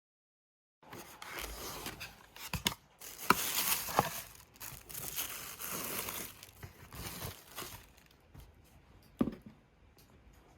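Close crinkling and rustling of something being handled, with scattered sharp taps. It is busiest for the first several seconds, then dies down, with a single louder knock about nine seconds in.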